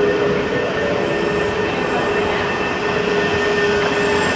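Steady running noise of a very long metro station escalator: a continuous mechanical rumble with a steady mid-pitched hum.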